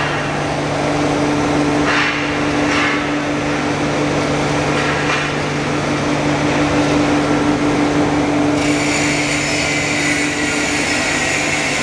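Horizontal foam-cutting machine running with a steady motor hum. A higher hiss joins about nine seconds in and carries on.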